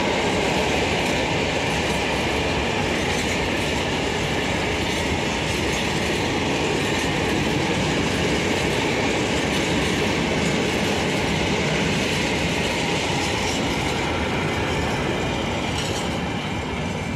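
Freight train of open-top wagons rolling past at speed: a steady noise of wheels on rails and rattling wagons, easing off slightly near the end as the last wagons go by.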